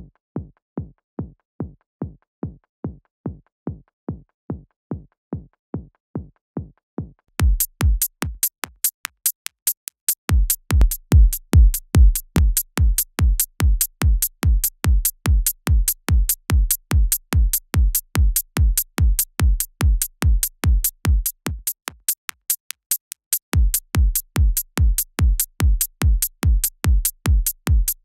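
Electronic drum part with a steady kick at about two and a half hits a second, playing through the Fire multiband saturator plugin. At first it is dull, with only the low end; about seven seconds in, a bright top end comes in, and the kick drops out twice for a second or two before coming back louder.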